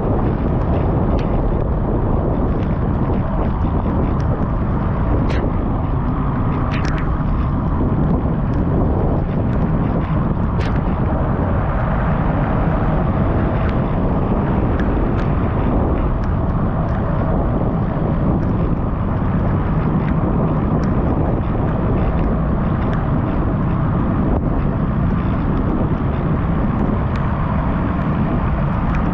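Steady wind rumble on the microphone, as when riding a bicycle, with scattered faint clicks and ticks over it.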